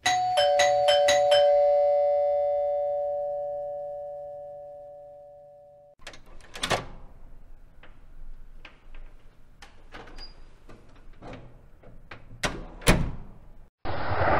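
Doorbell chime: a quick run of strikes, then two held tones, a ding-dong that fades away over several seconds. Then a door being unlatched and opened, a string of clicks and knocks with the loudest two close together near the end. In the last moment a loud rush of noise starts.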